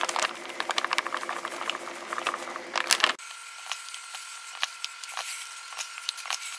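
Plastic bag of powdered sugar crinkling and rustling as the sugar is shaken into a metal mixing bowl. About three seconds in this stops abruptly, leaving faint soft taps from hands kneading sugar into fudge dough in the bowl.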